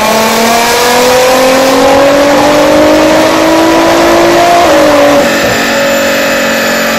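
Nissan GT-R R35's 3.8-litre twin-turbo V6 pulling under load on a four-wheel-drive chassis dyno, its pitch rising steadily for about four and a half seconds. About five seconds in the pitch dips and then holds steady, a little quieter.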